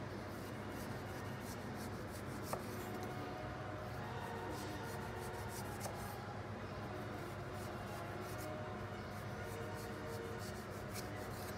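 Chef's knife cutting the thick skin off a celeriac on a wooden chopping board: irregular quiet scraping and slicing strokes. Faint music plays underneath.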